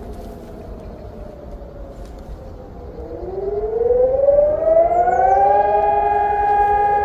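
Electronic civil-defence sirens sounding a monthly test alarm. A falling tone fades out, then about three seconds in the sirens wind up in pitch over a couple of seconds and settle into a steady, loud held tone.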